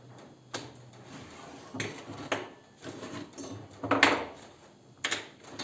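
Sheet-metal computer case panel being handled and offered up against the case: a series of clanks, knocks and scrapes of metal on metal, the loudest a longer scraping clank about four seconds in.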